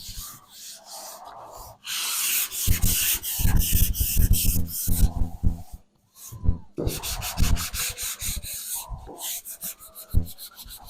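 Dry sanding of car body panels with sandpaper in rapid back-and-forth strokes. The sanding starts about two seconds in, pauses briefly around six seconds, then carries on.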